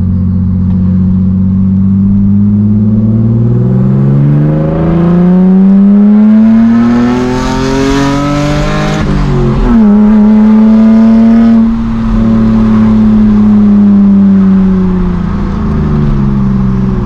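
BMW Z4 E85 engine through a straight-through exhaust, revs climbing steadily as it accelerates, then dropping sharply at an upshift about nine seconds in. It then holds fairly steady, briefly dipping as the throttle eases around twelve seconds, and falls slowly before picking up again near the end. Heard from inside the open cabin.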